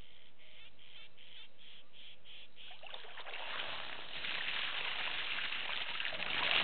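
African elephant bull splashing water at a waterhole, swinging and slapping his trunk through the shallows, loudest near the end. Before the splashing, in the first three seconds, a high rhythmic pulsing repeats about three times a second.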